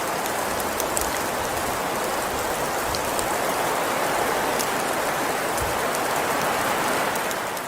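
Steady patter of precipitation falling on surfaces, with faint scattered ticks through it.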